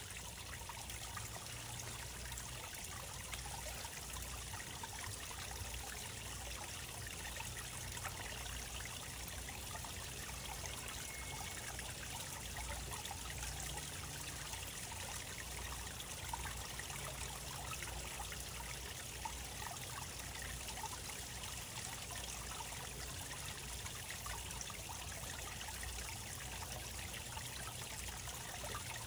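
Running water trickling steadily, over a low hum.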